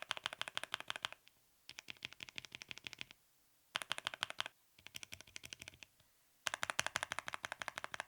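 Fast typing on a mechanical keyboard: five runs of rapid key clicks with short pauses between them.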